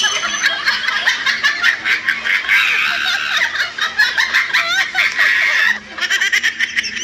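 People laughing, with several laughs overlapping.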